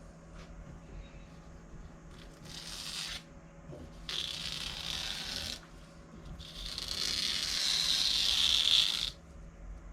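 Old cloth lining being torn away from an old paper print: raspy ripping in three pulls, the last the longest and loudest.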